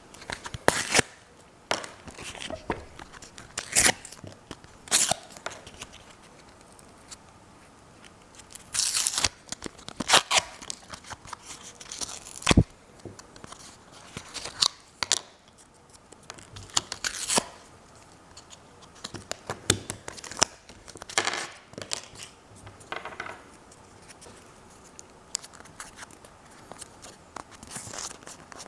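A small retail package being opened and handled by hand: irregular tearing and crinkling of the packaging, with sharp clicks and snaps in between.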